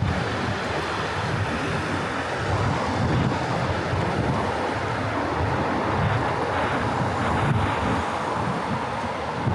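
Steady road-traffic noise from a busy main road, with wind gusting on the microphone in low rumbles.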